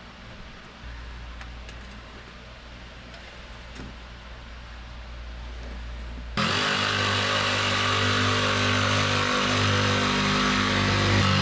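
Cordless jigsaw cutting a hole in an OSB panel, starting suddenly about six seconds in and running steadily and loudly.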